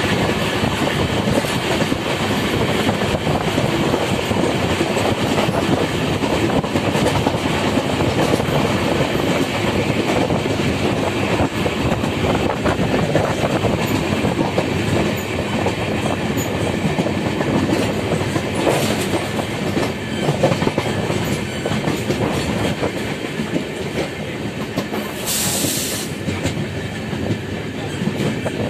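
Passenger express train running on the rails, heard through the coach's open window: a steady rumble and clatter of the wheels with wind noise. There is a short high hiss near the end.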